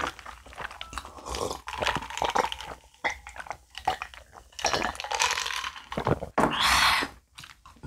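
Close-up mukbang eating and drinking sounds: swallows from an iced drink, then chewing and slurping of braised chicken and glass noodles. It is a run of small wet clicks and mouth noises, with two louder slurps in the second half.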